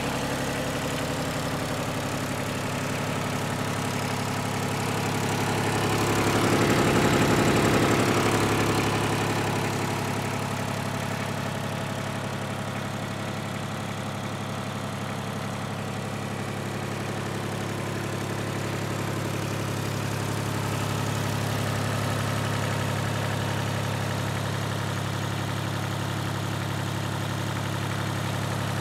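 Mitsubishi MT200 compact tractor's diesel engine idling steadily, growing louder for a couple of seconds about seven seconds in before settling back.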